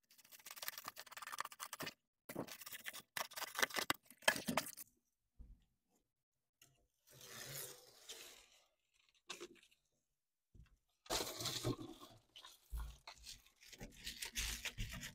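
Reflective bubble-foil insulation being cut, handled and pressed into place: irregular bursts of crinkling and scraping with pauses between them, and a few low bumps near the end.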